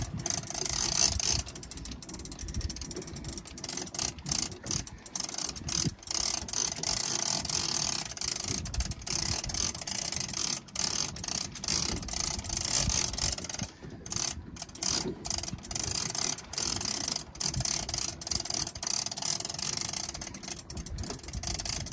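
Conventional big-game fishing reel being cranked against a heavy hooked fish, its gears giving a rapid, continuous clicking.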